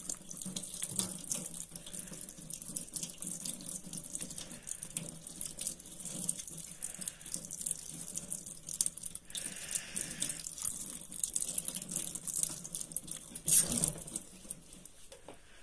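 Kitchen tap water running into a stainless steel sink as a degreased range-hood motor bearing bracket is rinsed and scrubbed clean with a sponge. There is a brief louder noise about 13 seconds in, and after it the water sound drops away.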